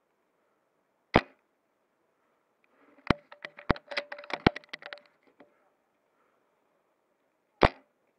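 Two single shots from a bolt-action spring airsoft sniper rifle, one about a second in and one near the end, each a sharp short crack. Between them comes a quick run of clicks and knocks for about two and a half seconds.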